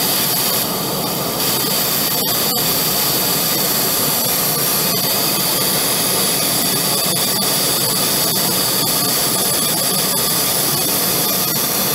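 Zimmer skin-cooling unit blowing a steady, loud stream of chilled air through its hose nozzle onto the skin during CO2 laser resurfacing, an even rush of air that dips slightly about a second in.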